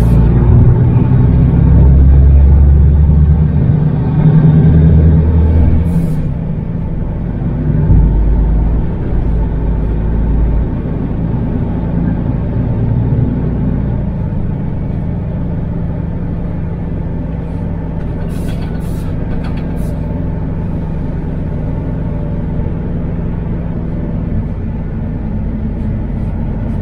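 A MAN TGX truck's diesel engine and road noise heard from inside the cab: a deep drone that is loudest and shifting for about the first ten seconds, then settles to a steadier, quieter hum. A few short sharp clicks come about six seconds in and again around eighteen to twenty seconds.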